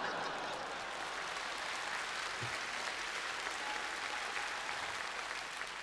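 Studio audience applauding steadily, fading slightly near the end.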